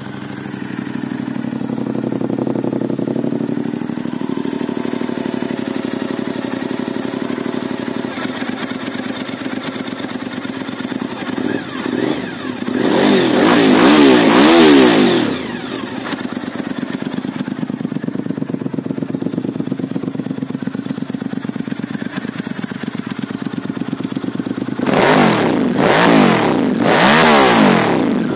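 2003 Honda VTR1000 SP-2's 90-degree V-twin idling, then revved once hard about halfway through, its pitch rising and falling back to idle. Near the end comes a quick series of three or four throttle blips.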